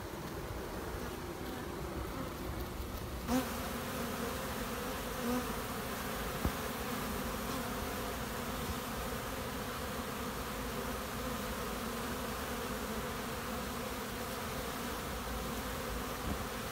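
Steady hum of many honey bees buzzing in flight, which becomes fuller about three seconds in.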